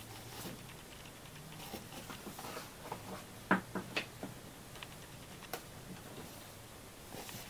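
Scattered light clicks and taps of a hand working around the alternator and belt pulleys in a car's engine bay, likely while routing a new serpentine belt. The sharpest tap comes about three and a half seconds in.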